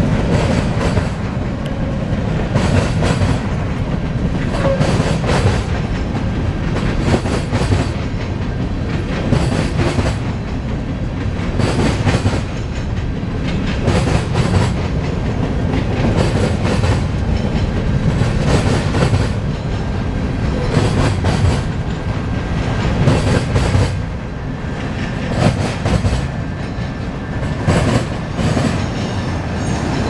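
Freight cars rolling past close by: covered hoppers and then autorack cars. There is a steady low rumble, with wheels clacking repeatedly over the rails.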